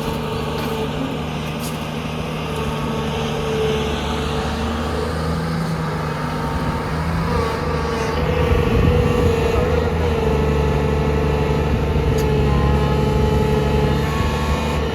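JCB 3DX backhoe loader's diesel engine running steadily under working load, growing louder about eight seconds in.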